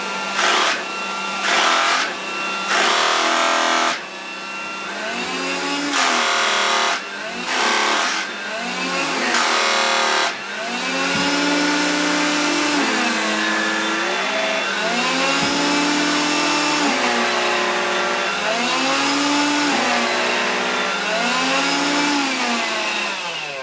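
Electrolux Ergorapido Lithium cordless stick vacuum running on carpet. A steady motor hum runs under the brush-roll motor in the floor nozzle, which keeps speeding up and slowing down: loud surges in the first ten seconds, then a whine that rises and falls about every two seconds. The owner can't tell what the varying drive is for, and guesses it runs the brush harder to clean it while a blade is lowered onto it.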